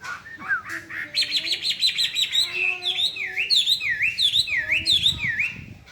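Chinese hwamei singing: a few gliding whistles, then a fast trill of repeated notes, then a run of loud down-and-up sweeping whistles at about two a second.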